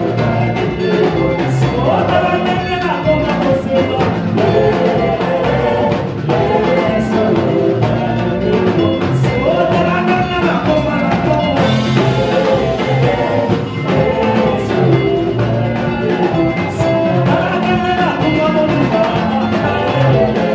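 Live worship band music with drums and bass under melodic instruments, playing a steady rhythm.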